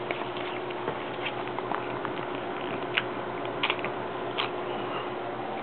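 Steady background hiss with a few faint, scattered clicks and crackles.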